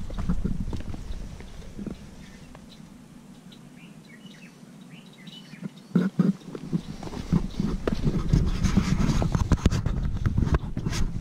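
Footsteps on a dirt trail with wind on the microphone. They stop for a few seconds in the middle, where faint bird chirps come through, and start again about six seconds in.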